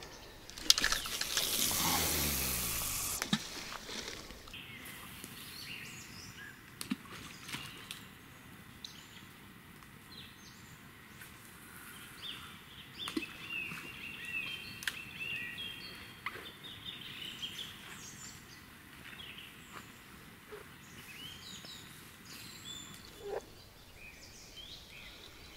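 A bottom-rod cast: a rushing whizz of line paying off the reel, falling in pitch over about two and a half seconds. After it come a few sharp clicks and scattered bird chirps.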